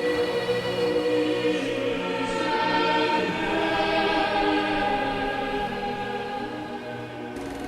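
Choral music: a choir holding sustained chords, changing chord about halfway through. Just before the end it cuts off to a steady mechanical hum.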